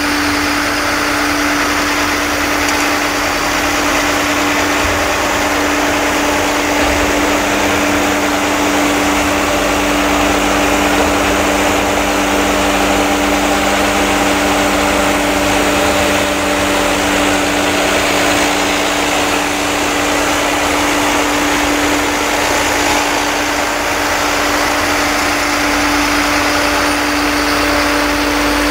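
An engine running steadily at an even speed, with a constant drone.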